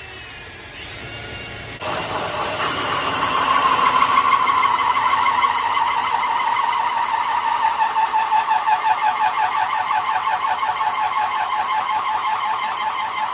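Cordless drill driving a 3 3/4-inch hole saw into a steel car hood: a lighter whir for the first couple of seconds, then the teeth bite and a loud, steady metallic squeal with a fast chatter runs on as the saw cuts through the sheet metal.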